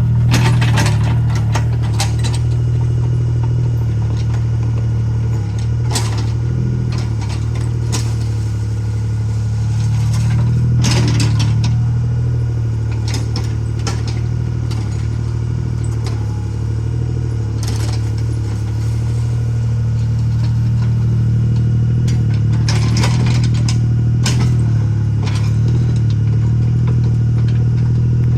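Mini excavator engine running steadily, with repeated sharp clanks and rattles from the machine working, in clusters near the start, in the middle and near the end.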